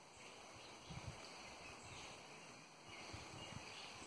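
Faint outdoor ambience with scattered quiet chirps and a few soft low thumps, one about a second in and a couple more near three seconds in.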